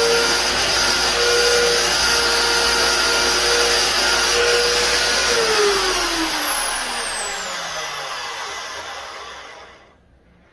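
Electric motor driving a sanding disc runs with a steady whine while a knife's wooden handle scales are sanded against the disc. About five seconds in the motor winds down, its whine falling in pitch and fading as the disc slows, dying away near the end.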